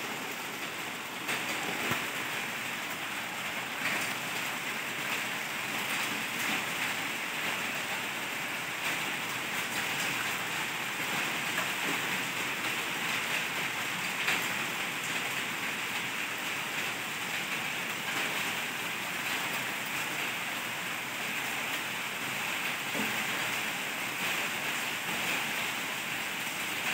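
Heavy rain pouring down steadily in a storm, a constant rush with a few sharper taps scattered through it.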